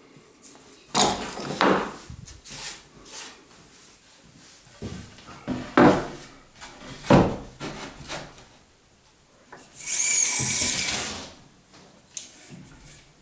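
Pine boards being handled on a wooden workbench: a string of knocks and scrapes of wood on wood. Near the end comes about a second of rattling as a steel tape measure is pulled out along a board.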